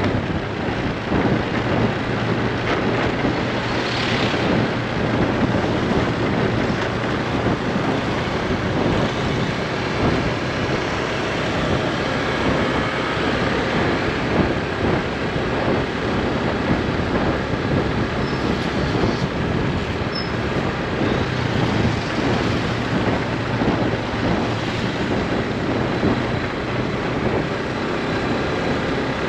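Motorbike running steadily on the road, its engine hum under a constant rush of wind and road noise, with no breaks.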